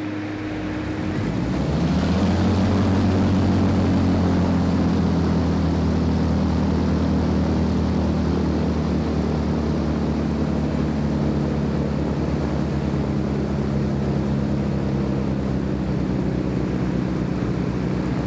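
An Avro Shackleton Mk3's inboard Rolls-Royce Griffon V12 engine catches about a second in after being primed and turned over. Its pitch rises as it fires up, then it settles into steady running.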